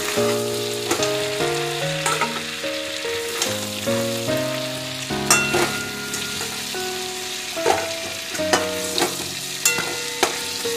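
Chicken pieces sizzling in hot mustard oil in a kadai, with a spatula scraping against the pan every second or so as the pieces are lifted out. An instrumental tune of stepping notes plays throughout.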